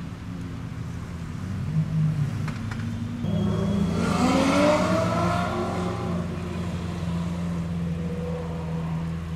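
Supercar engines running in traffic with a steady low rumble; about three seconds in, one engine revs up in a rising sweep as the car accelerates away, loudest around four to five seconds, then settles back to a steady drone.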